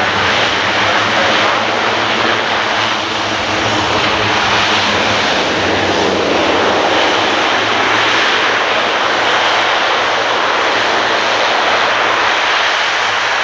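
Airbus A400M's four TP400 turboprop engines and propellers running loud and steady.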